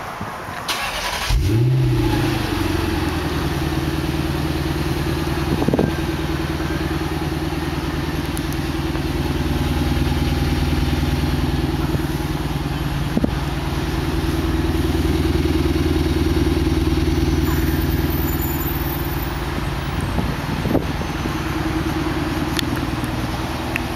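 Lexus IS-F's 5.0-litre V8 starting about a second and a half in, with a short flare in revs, then settling into a steady idle. Heard from behind the car at the exhaust tips.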